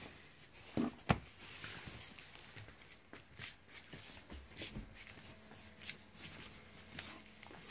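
Soft rustling and scratchy clicking of dogs moving about on a dog bed and tiled floor, with a couple of light thumps about a second in.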